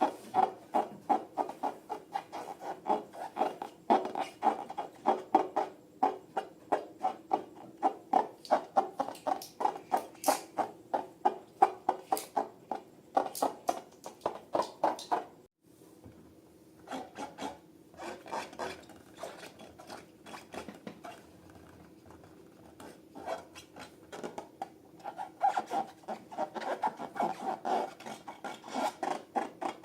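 Slime being stirred and worked in a bowl by hand: repeated squishing, rubbing strokes at about three a second. They pause about halfway through, resume more softly, and grow busier again near the end.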